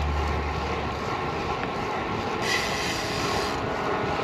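Steady rush of wind and road noise from a moving road bicycle. A low hum fades out about a second in, and the hiss grows brighter for about a second in the middle.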